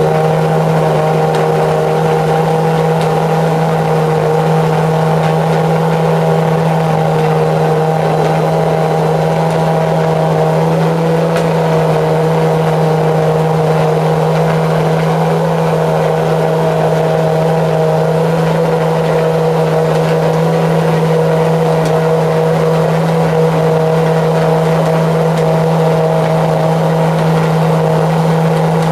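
The BMW S70/2 V12 of a McLaren F1 GTR race car idling steadily, its pitch holding constant and no revving.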